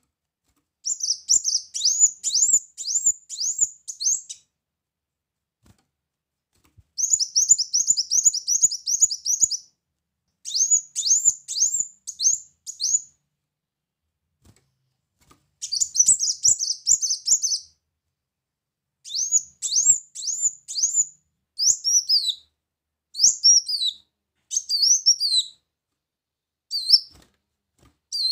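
Male brown-throated sunbird (kolibri muncang) calling: bursts of rapid, high, sharp chirps, about four or five a second, with short pauses between. From about two-thirds of the way in, the notes come more spaced out and slur downward.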